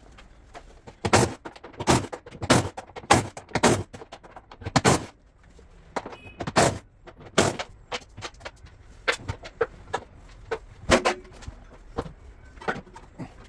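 A series of sharp knocks and clinks, about two a second for the first few seconds, then scattered single knocks.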